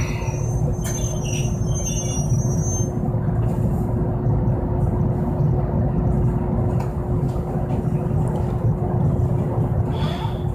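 Heard from inside a Toyohashi Railroad Mo 780 tram as it comes to a halt at a stop: a high thin squeal for the first few seconds. After that, a steady low rumble and a constant hum while the tram stands.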